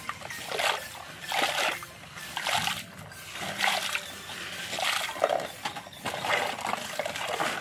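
Wet sand and gravel scraped by hand off the bed of a plastic toy dump truck and splashing into shallow muddy water, as a series of short splashes about once a second.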